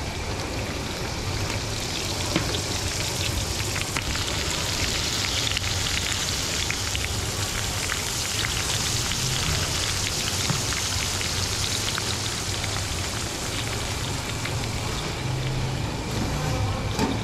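Chunks of meat frying in hot fat in a large steel wok: a steady sizzle sprinkled with many small crackles and pops, over a low steady hum.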